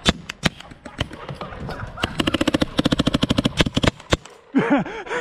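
Paintball markers firing: a few single shots at the start, then a fast string of rapid-fire shots lasting about a second and a half, beginning about two seconds in.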